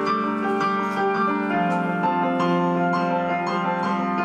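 Piano playing slow, sustained chords with a melody line above them, new notes coming in every half second or so.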